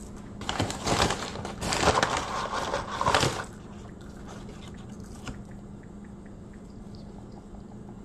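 Paper fast-food bag rustling and crinkling for about three seconds as it is handled and reached into, then quiet with a faint steady hum.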